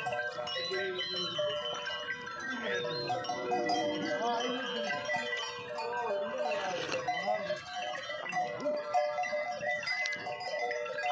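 A herd of cattle on the move, many neck bells ringing together at a few fixed pitches, with calls from the animals rising and falling in pitch now and then.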